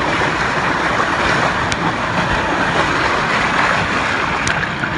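Loud, steady rush of water pouring and splashing on a water-park slide, with a low rumble underneath.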